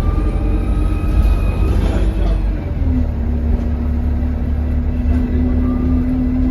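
Euro 6 Alexander Dennis Enviro200 bus heard from inside the cabin: a steady low engine rumble, with a faint high whistle rising and falling over the first two seconds or so and a steady droning note setting in about three seconds in. The uploader puts the bus's whistle down to a turbo leak.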